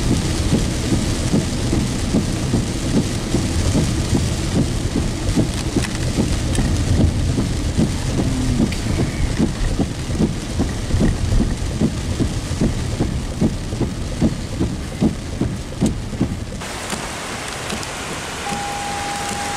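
Heavy rain pattering on a car's roof and windshield, heard from inside the moving car, a dense run of small hits over a steady hiss. About sixteen seconds in the sound changes suddenly and drops in level.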